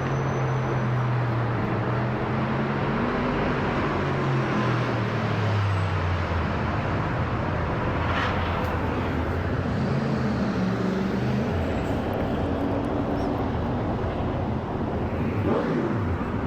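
Boeing 777-200ER airliner's jet engines droning steadily overhead, a broad roar with a low hum that slowly drops in pitch as the plane passes.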